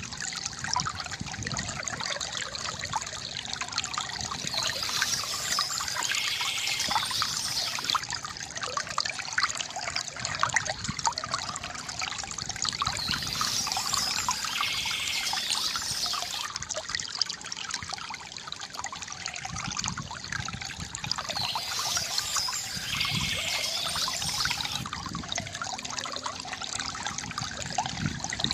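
Water trickling and splashing steadily from a bamboo fountain, a continuous gurgling flow.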